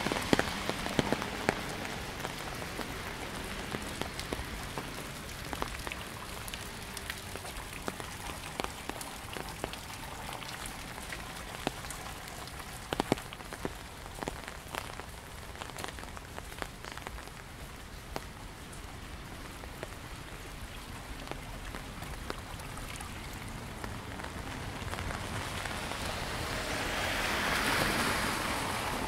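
Raindrops tapping on an umbrella in irregular sharp ticks, over the steady rush of a stream running full after heavy rain. The rush of water swells near the end.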